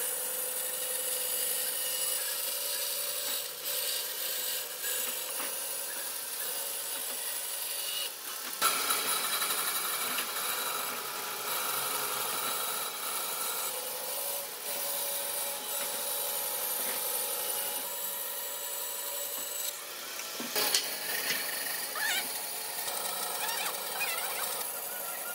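Power tools working on wood: a steady, high-pitched abrasive grinding noise. It changes abruptly about a third of the way in and again near the end, with a few short knocks.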